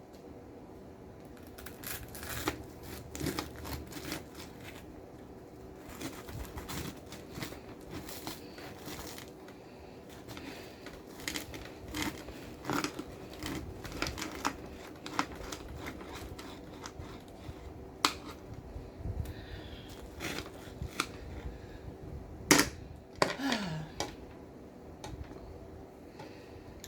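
Scattered clicks, taps and crinkling from handling food at a table, over a faint steady hum. A brief falling voiced sound comes near the end.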